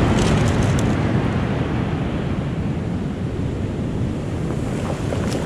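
Ocean surf washing up the beach, with wind buffeting the microphone.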